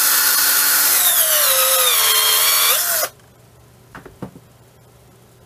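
Cheap 18-volt cordless drill running at its unloaded top speed, a steady high whine. From about a second in its pitch sags as the chuck is braked by hand and the motor strains to hold speed. The pitch recovers briefly just before the motor cuts off at about three seconds in, followed by two light clicks.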